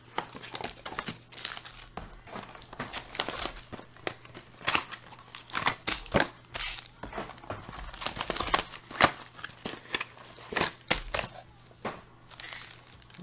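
Plastic wrapping and silver foil trading-card packs crinkling and rustling as a card box is unwrapped and its packs handled. The crackle is irregular, with a few sharper snaps a little past the middle.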